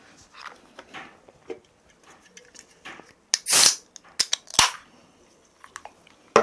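A small aluminium Pepsi can being opened: a loud half-second hiss of escaping carbonation about three and a half seconds in, followed by a couple of sharp metallic clicks from the pull tab. Light clicks of the can being handled come before it.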